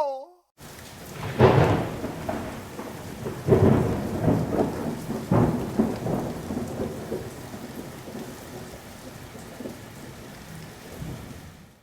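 Thunderstorm sound effect: steady rain with thunder, three loud crashes in the first six seconds, then rumbling that slowly dies away and stops abruptly.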